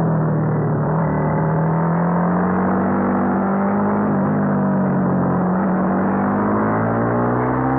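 Honda CBR250R's single-cylinder four-stroke engine running at high revs under load. Its pitch dips a little early on, holds steady, then climbs from about six seconds in as the bike accelerates.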